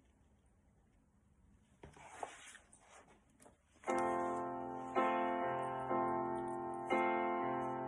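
Piano accompaniment starting about four seconds in: sustained chords struck about once a second, each ringing on and fading. Before the chords there is only a faint rustle.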